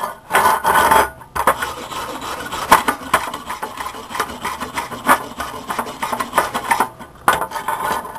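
Rasping scrape of a tool worked back and forth over a steel weld bead, with sharp clicks and knocks among the strokes, cleaning the bead off.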